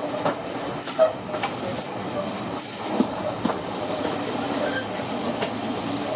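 Railway coach running along the track, heard from inside at an open window: a steady rumble of wheels on rail, with two pairs of sharp clacks from wheels crossing rail joints, about one second in and three seconds in.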